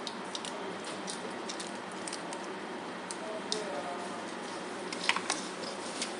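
Steady background hiss with scattered small clicks and light handling noise, the two sharpest clicks about five seconds in.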